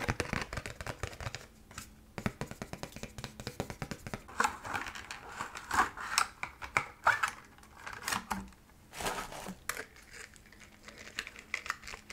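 ASMR trigger sounds of hands on product packaging: rapid tapping and scratching, with stretches of crinkling and rustling in the middle.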